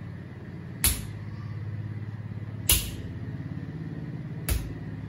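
Three sharp fist punches landing on a man's bare stomach, a little under two seconds apart, over a steady low hum.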